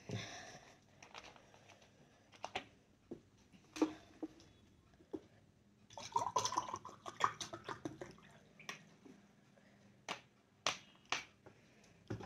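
Water poured from a plastic bottle into a glass tumbler, a splashing pour for about two seconds starting about six seconds in. Scattered clicks and taps come from handling the plastic bottle, its cap and the glass.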